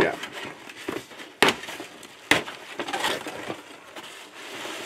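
A cardboard shipping box being torn and cut open: two sharp cracks of cardboard and tape ripping, then a scratchy rasp of a knife blade drawn along the cardboard seam near the end.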